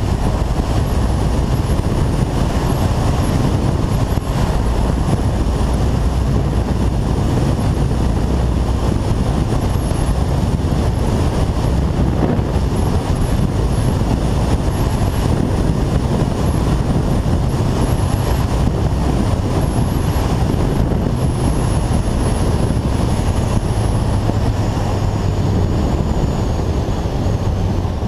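Kawasaki ZZR1400's inline-four engine running steadily under way, heard through a heavy, steady rush of wind and road noise.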